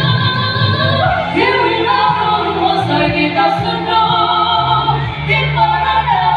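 Group singing a traditional Dusun gonding chant: several voices hold and slide between long notes over a steady low drone.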